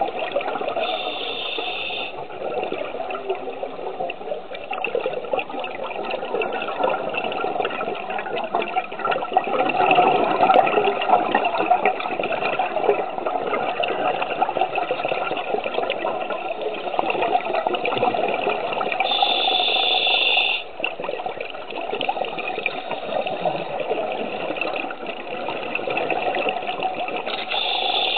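Scuba regulator breathing heard underwater: a steady rush of bubbling exhaled air, with three short higher hisses spread through it.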